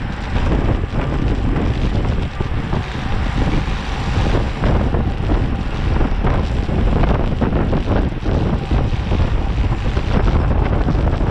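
Loud, steady wind buffeting across the microphone of a camera on a bicycle moving at race speed, with a gusty low rumble.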